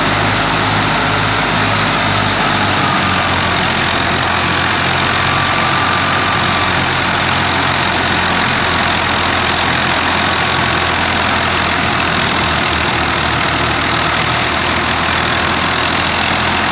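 Tractor engine running steadily, driving a PTO-powered wheat thresher whose drum and fan add a loud, even rushing noise. A low throb pulses for the first few seconds, then holds steady.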